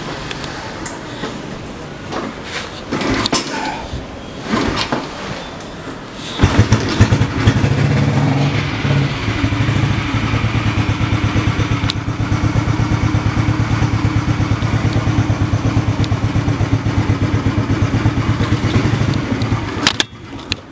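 A motorcycle engine starts about six seconds in, after a few knocks and handling noises. It runs a little faster at first, then settles to an even idle, and stops shortly before the end.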